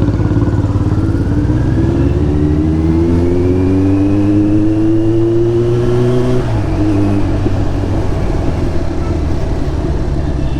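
Kawasaki Z900's inline-four engine through an SC Project slip-on exhaust, under way. The engine note climbs steadily for about six seconds as it accelerates, then drops suddenly and runs on at lower revs.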